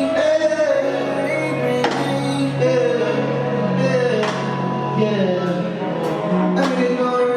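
Live R&B performance: a singer's drawn-out, bending vocal line over a steady bass, with scattered drum and cymbal hits.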